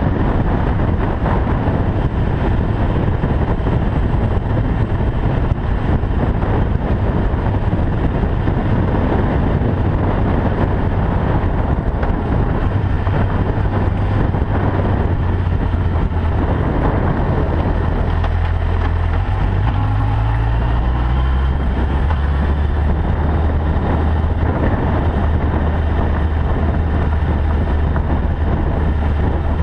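Honda CBF1000's inline-four engine running at road speed, mixed with steady wind rush on the microphone and tyre noise on a gravel road. About two-thirds of the way through, the engine note climbs briefly and then settles lower.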